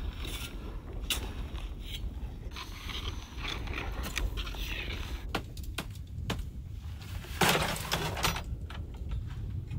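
Ice axe and shovel chopping and scraping into packed snow to dig out a snowed-in hut entrance: a scatter of short knocks and scrapes over a steady low rumble, with one louder scrape about seven and a half seconds in.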